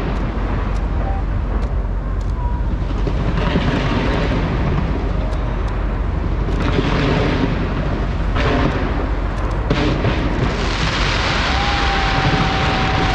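Large fireworks display going off continuously: a dense low rumble of bursts broken by sharp cracks, turning into a steady crackling hiss in the last few seconds. A thin steady whistle sounds near the end.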